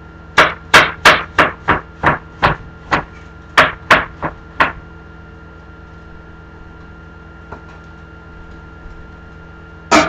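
Heavy chopping strikes on a cutting board: about a dozen hard blows in quick succession, roughly three a second, stopping after about four seconds. A single loud knock follows near the end.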